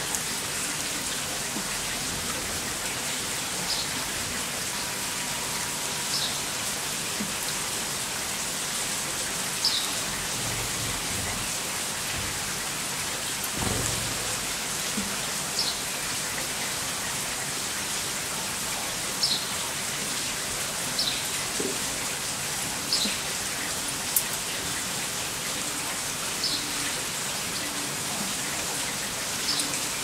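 Steady rain falling, an even hiss throughout, with short high chirps of a bird every few seconds and a brief low rumble about halfway through.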